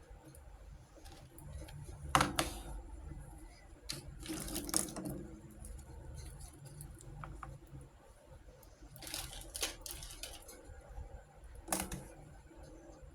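Handling noises from a miniature plastic kitchen toy set: a few short bursts of rustling and clatter a couple of seconds apart, over a low steady hum.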